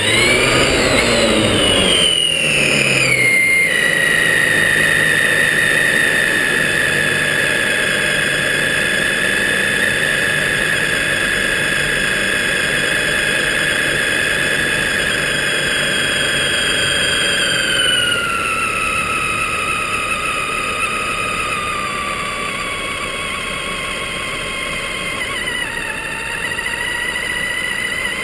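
Electric motor and gear drive of a Traxxas Summit RC truck whining as it drives, the pitch following its speed: a quick rise and fall in the first few seconds, a long steady stretch, then a drop about two-thirds of the way through.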